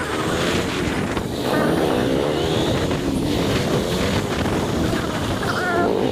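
KTM 200 Duke's single-cylinder engine running as the motorcycle rides at low speed, its pitch rising and falling with the throttle, with wind buffeting the microphone.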